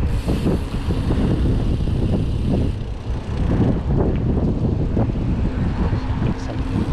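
Wind rumbling on the microphone of a mountain bike ridden over rough trail, with scattered knocks and rattles from the bike over bumps.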